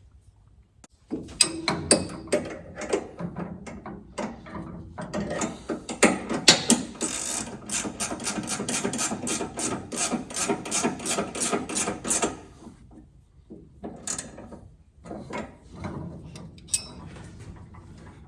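Hand ratchet wrench clicking as bolts are worked on. It starts about a second in, settles into an even run of about four clicks a second in the middle, and stops, leaving a few scattered knocks near the end.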